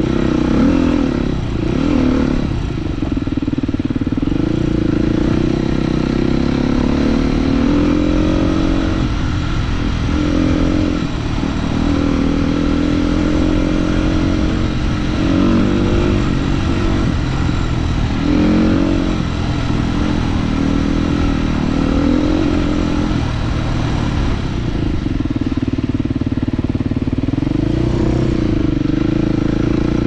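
Husqvarna 450 single-cylinder four-stroke motorcycle engine running under way, its revs repeatedly rising and falling as the rider rolls the throttle on and off. Wind noise rumbles on the microphone.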